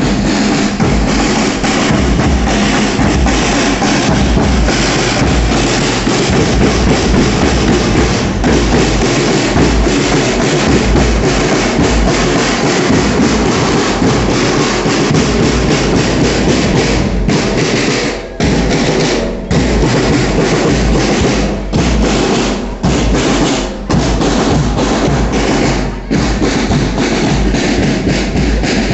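Scout band snare drums playing a continuous marching beat, with a few short breaks in the second half.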